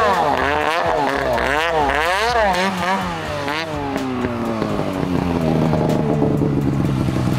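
Snowmobile two-stroke engine revving up and down quickly, about twice a second, for the first few seconds, then one long, steady fall in pitch.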